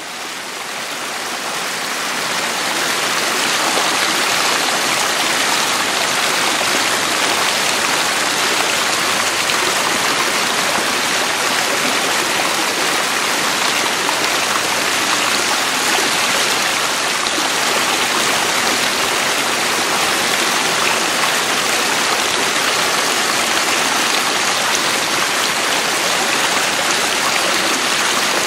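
Running water of a stream, a steady even rush that fades in over the first three seconds or so.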